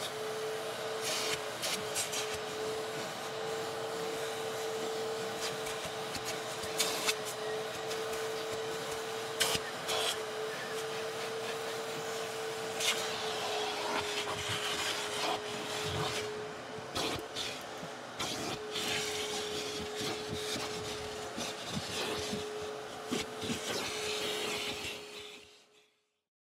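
Giraffe Tools wall-mounted retractable vacuum running with a steady whine, its nozzle brushing and scraping over a leather car seat in short strokes. The sound fades out near the end.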